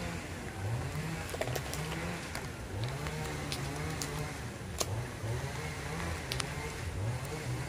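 Chainsaw running, its pitch rising and falling again and again as it is revved, with scattered sharp ticks over it.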